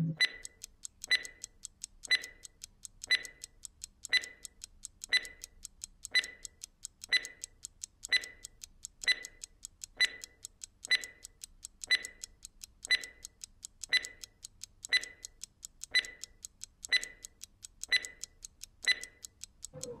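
Ticking-clock sound effect marking a countdown: an even, sharp tick about once a second, with fainter ticks in between.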